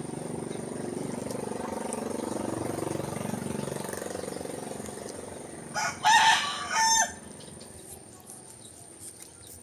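A rooster crowing once, a little over a second long: a short note, then a long high call that cuts off sharply. A low rumble underneath fades over the first few seconds.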